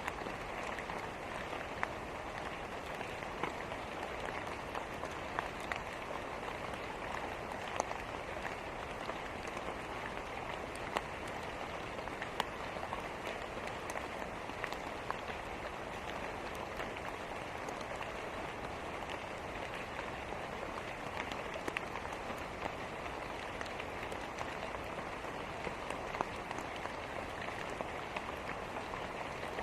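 Steady rain falling, with a wood fire in a fireplace crackling and popping now and then.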